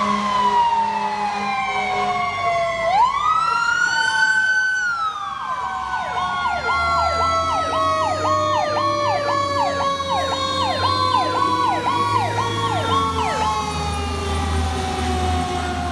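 Fire engine sirens: a Federal Q2B mechanical siren winding down in a long, slowly falling tone, while a Federal PowerCall electronic siren wails up and down and then switches to a fast repeating yelp, about two cycles a second, for around seven seconds. The truck's engine drone rises as the apparatus passes near the end.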